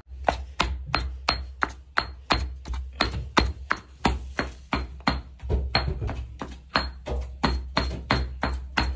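Stone pestle pounding raw boneless chicken in a stone mortar, about three even strikes a second. Each strike is a dull thud with a short ringing ping of stone on stone. The meat is being beaten by hand into mince for meatballs.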